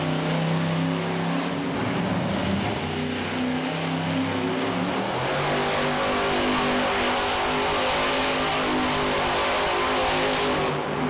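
Monster truck's supercharged V8 engine revving hard, its pitch stepping up and down, as the truck spins donuts in the dirt.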